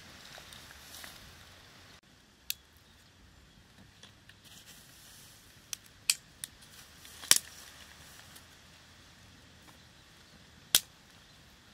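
Small fire of dry twigs crackling, with about six sharp, scattered pops, the loudest two near the middle and near the end.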